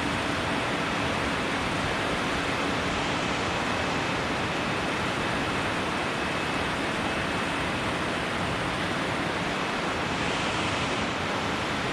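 Steady rush of fast water pouring over and below a dam, an even unbroken roar.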